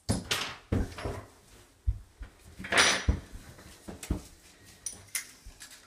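Handling noise: a series of short knocks, clunks and rustles as objects are picked up and moved about, with a longer scraping rustle about three seconds in.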